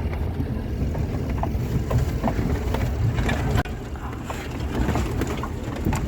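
A vehicle driving, heard from inside: a steady low rumble from the engine and road, with scattered knocks and rattles.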